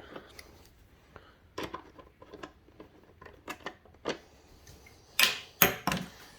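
Irregular light clicks and taps of parts being handled, with a louder cluster of sharp knocks about five seconds in.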